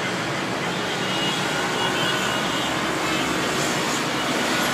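Steady noise of heavy road traffic heard from high above a busy city road, with engines and tyres blending into one continuous rush.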